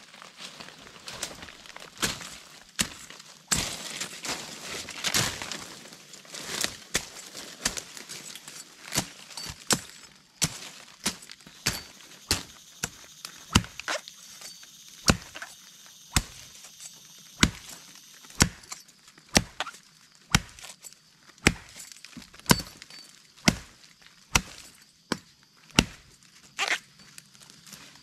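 A knife chopping at a plant stem: sharp, separate strikes about once a second, over a steady drone of insects.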